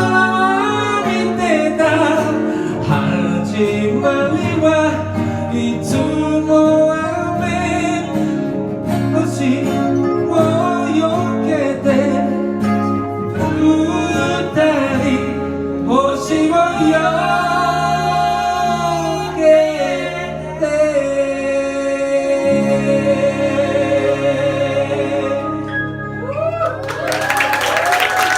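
A singer's voice over a pop backing track, the song closing on a long held note. Applause breaks out near the end.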